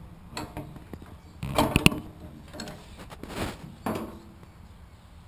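Worx Aerocart wheelbarrow's frame and tub being folded by hand: a few sharp clicks and knocks, the loudest cluster about a second and a half in.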